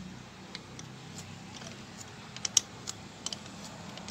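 Scattered sharp metal clicks and taps, about half a dozen and the loudest a little past halfway, as a socket on a long bar is rocked back and forth on a diesel injector to work it loose in the cylinder head. A faint low hum runs underneath.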